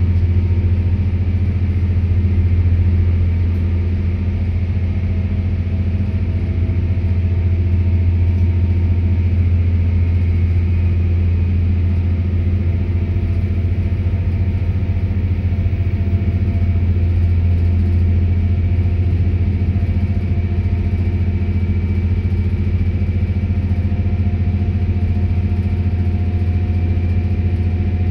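Diesel engines of a Stadler GTW-D diesel-electric railcar running hard under heavy throttle, heard from the seat right against the power module, with the whine of its electric traction motors rising slowly as the train gathers speed.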